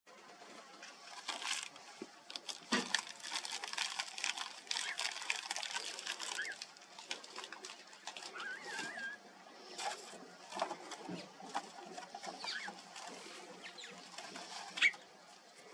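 Two black lizards scuffling on gravel and dry leaf litter as they fight: a dense run of rustling and scratching crackles, busiest in the first half, with one sharp louder click near the end.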